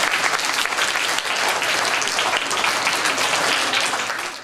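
A hall full of schoolchildren applauding, a dense steady patter of many hands clapping that fades near the end.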